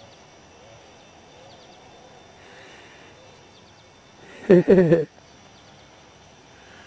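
A short non-word vocal sound from a person, about four and a half seconds in, lasting about half a second. Behind it is a steady outdoor background with faint bird chirps.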